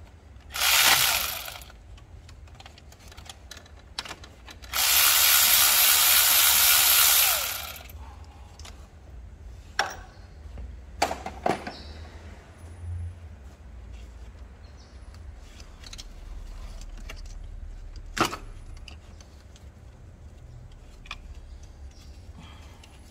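Power tool run in two spurts, one brief and one of about three seconds, while fasteners are taken off during a water pump removal. Sharp clicks and knocks of tools on metal follow.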